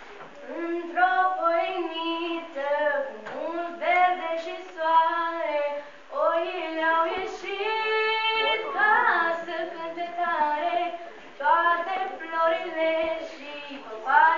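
A girl singing solo with no accompaniment, in phrases a second or two long.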